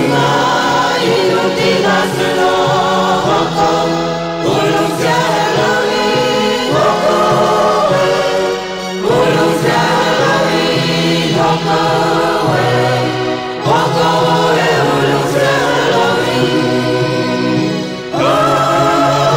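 A group of voices singing a Chin traditional song in long held melodic phrases, with a short break between phrases about every four to five seconds.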